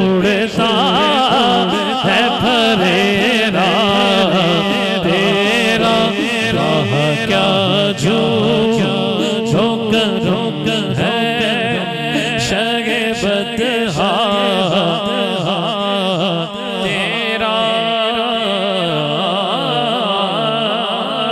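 A man sings a naat into a microphone in long, wavering, ornamented melismatic phrases over a steady low drone.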